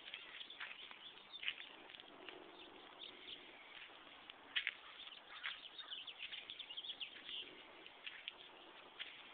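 Small birds chirping in short, scattered calls, busiest around the middle, over a faint steady hiss.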